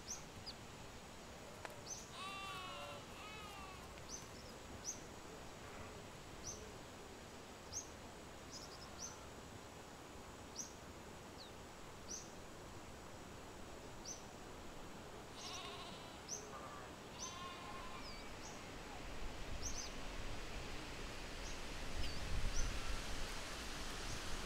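Outdoor ambience with a short, high chirp repeated about once a second, and a wavering, bleat-like animal call heard twice: about two seconds in and again around fifteen to seventeen seconds. A low rumble builds near the end.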